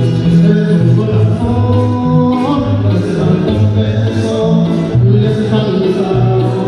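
Son huasteco trio playing a huapango: violin carrying the melody over the strummed jarana huasteca and the huapanguera, whose bass notes change every half second or so.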